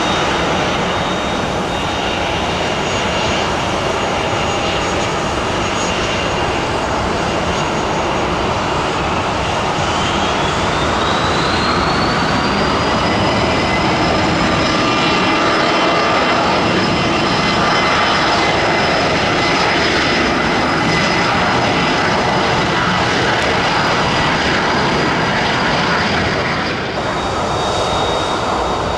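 Jet airliner engines running loud and steady, with a high whine that rises in pitch about ten seconds in and then holds.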